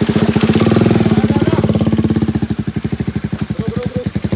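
Single-cylinder motorcycle engine running at low revs close by, a fast, even chugging pulse, as the bike is worked up over rocks.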